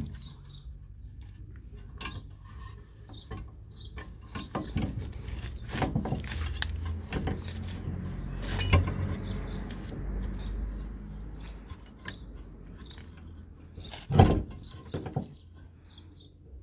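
Hand tools clinking and knocking on a car's front wheel hub and brake caliper during drive-shaft work, with two louder metallic knocks about nine and fourteen seconds in. A low rumble runs underneath from about five to eleven seconds in.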